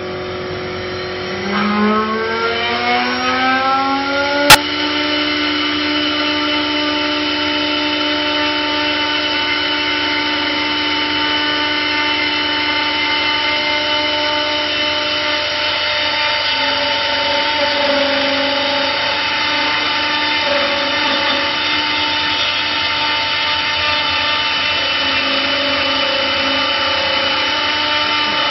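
CNC wood-turning lathe running. About a second and a half in, one of its motors spins up with a rising whine over about three seconds. A sharp click follows, and then the machine runs on with a steady whine.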